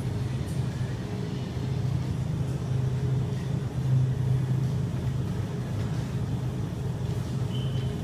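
Steady low hum of grocery-store refrigeration and ventilation machinery, with a short high chirp near the end.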